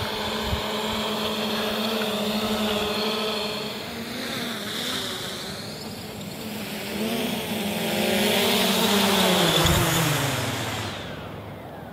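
Hubsan H501S quadcopter's brushless motors and propellers whirring steadily. The whir gets louder about eight seconds in, then falls in pitch and dies away near the end as the motors spin down with the drone on the ground.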